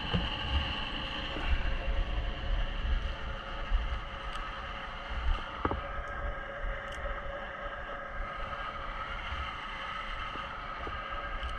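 An engine runs steadily in the background, with a low rumble of wind on the microphone and a single knock about halfway through.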